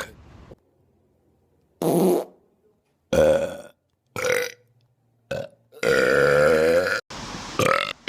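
A string of separate human burps, each starting and stopping abruptly with silence between. Four or five are short; one low, wavering burp lasts a little over a second, about two-thirds of the way through.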